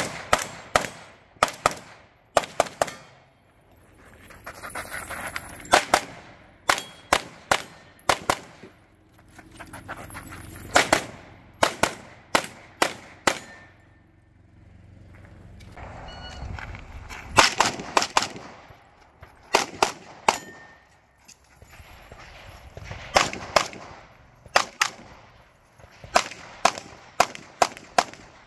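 Competition pistols fired through a USPSA stage: fast strings of sharp shots, often several a second, broken by pauses of one to three seconds between strings.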